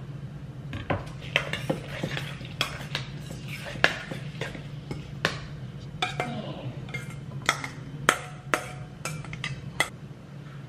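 Kitchen utensils and bowls clinking and scraping as salsa ingredients are scraped together, mixed, and tipped from a stainless steel bowl: irregular sharp clatters, over a steady low hum.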